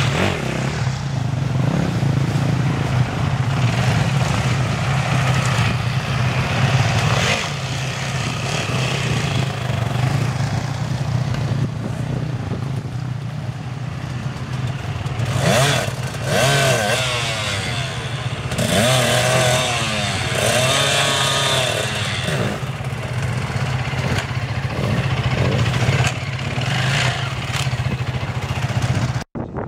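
Off-road dirt bike engines running: a steady engine drone, with bikes revving up and down as riders pass, the revving strongest in the middle. The sound cuts off suddenly near the end.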